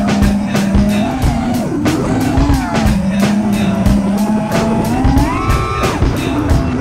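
FPV quadcopter's motors and propellers whining, the pitch swinging up and down with the throttle, climbing steeply about five seconds in and dropping away just before six.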